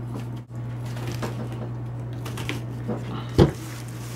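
Chef's knife slicing a red onion and knocking on the cutting board: a few irregular chops, the loudest about three and a half seconds in, over a steady low hum.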